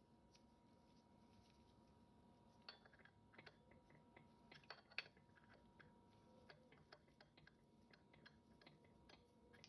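Near silence: room tone with faint, scattered light clicks and taps starting about three seconds in, the sharpest one about five seconds in.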